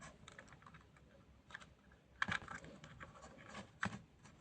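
Faint small plastic clicks, taps and scrapes as a Polly Pocket doll is pushed and worked into a plastic playset, with a few sharper taps about halfway through and near the end.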